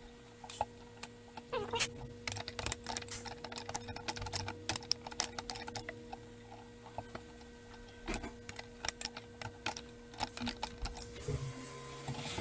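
Irregular metallic clicks and ticks, in bursts, from a wrench working the brake line fittings on the ABS brake module, over a faint steady hum.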